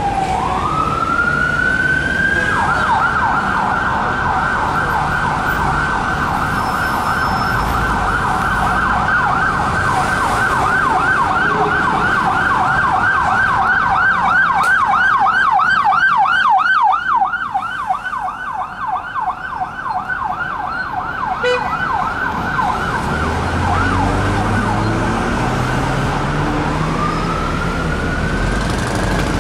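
Unmarked Ford Mondeo police car's siren: a rising wail that switches after a couple of seconds to a fast yelp, then goes back to a slow rising wail near the end. Traffic engine noise runs underneath.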